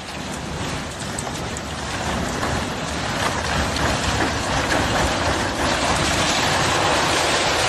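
Steady rushing noise, like heavy rain or rushing water, growing louder over the first few seconds and then holding even.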